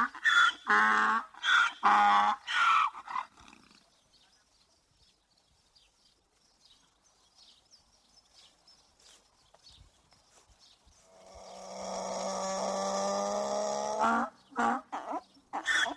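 Donkey braying: a run of rhythmic, rapidly alternating hee-haw calls, then several seconds of quiet, then a long held note that swells up and breaks into fast braying pulses again near the end.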